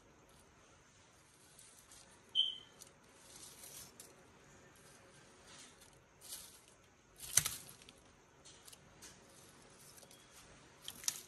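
Melanistic Asian water monitor biting and working a thawed rat in its jaws: scattered wet crunches and scrapes, the loudest a sharp crack about seven seconds in. A brief high chirp sounds about two seconds in.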